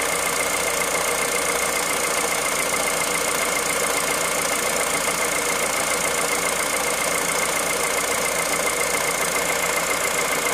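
Car engine idling while cold, with a steady high whine over the running noise: the cold-engine noise the owner is recording at 65,000 km.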